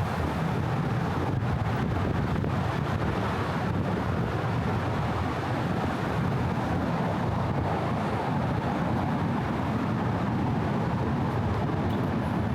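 Steady traffic noise, a continuous even rumble with no single vehicle or event standing out.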